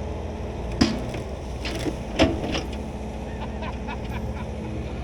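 Skid steer engine running steadily, with two sharp knocks, about one and two seconds in, and a few fainter clicks.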